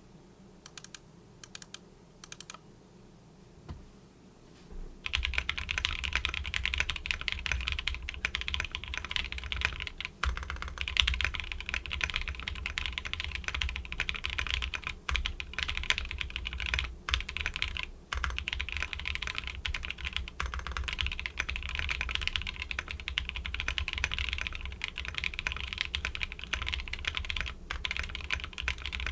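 Typing on a custom Matrixlabs Corsa mechanical keyboard with lubed and filmed linear switches (cream POM stems in silk housings) on an aluminum plate, under KAT-profile PBT keycaps. A few scattered keystrokes at first, then from about five seconds in steady fast typing, a dense run of clicky-clacky keystrokes.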